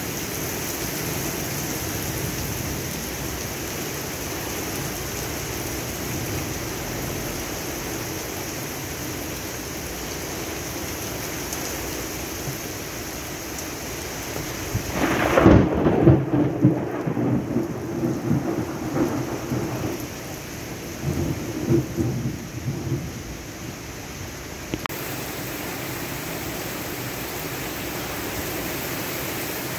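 Heavy rain falling steadily on pavement and parked cars. About halfway through, a loud clap of thunder breaks in and rumbles for several seconds, swelling again briefly a few seconds later.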